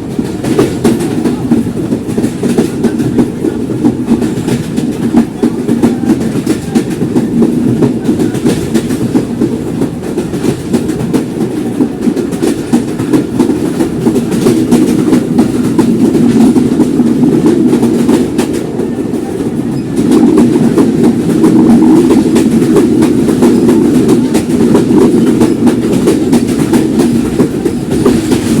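Simanta Express passenger train's wheels running over the rails at speed: a dense, steady rattle and clatter that gets louder about two-thirds of the way through.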